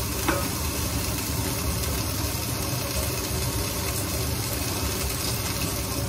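Vegetables sizzling in a frying pan over a gas burner, over a low steady hum, with a brief knock of cookware about a third of a second in.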